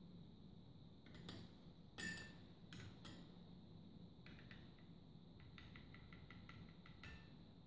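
Near silence with a few faint clicks and light glassy clinks, the loudest about two seconds in, then a quick run of soft ticks: a water electrolysis tester's metal electrodes and plastic body being handled in and against drinking glasses.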